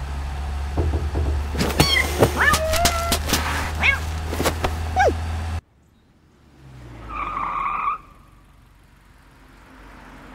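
A cat meowing and yowling in rising, bending cries over the steady low drone and knocking of a moving van, all of which cuts off suddenly about five and a half seconds in. A short, single steady tone follows about a second later, then faint street traffic.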